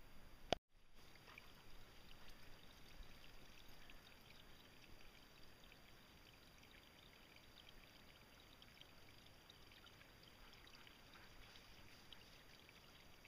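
Near silence: faint hiss with scattered soft crackles, and a single sharp click about half a second in.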